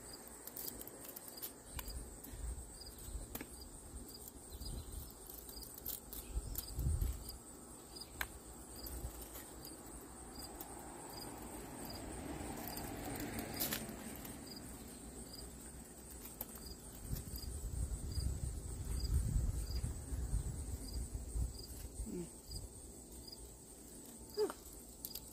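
Scattered light clicks and crinkles of thin aluminum fins being picked off the copper tubing of an air-conditioner coil by gloved hands, with bouts of low rumble. Steady, evenly pulsed insect chirping, like crickets, runs behind it.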